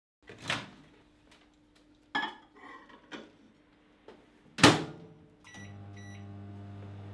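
Microwave oven in use: a few clicks and some clatter, then the door is shut with a loud clunk. Two short keypad beeps follow, and the oven starts running with a steady low hum.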